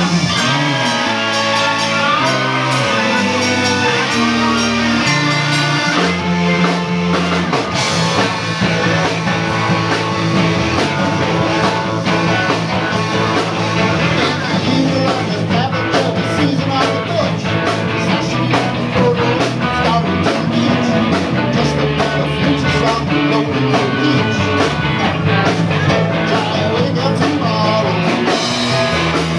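Live rock band playing: electric guitars, bass guitar and keyboard, with a man singing into a microphone.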